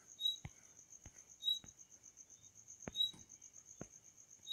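Faint background insect chirping: a steady pulsing high trill with a short louder chirp repeating about every second and a half. A few faint sharp clicks are scattered among them.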